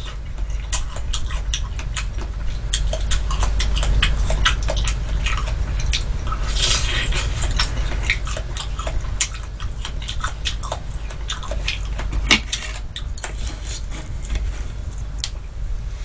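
Close-up chewing and wet mouth clicks of a person eating ripe persimmon, many short smacking sounds at an uneven pace, over a steady low hum.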